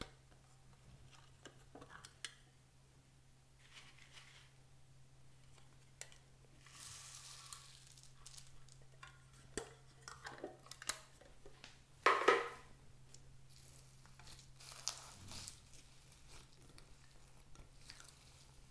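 A small decorated box being handled and tipped over a glass dish of slime: scattered clicks and taps, then foam beads and small balls rustling and pattering into the dish, with one louder knock about twelve seconds in. A steady low hum runs underneath.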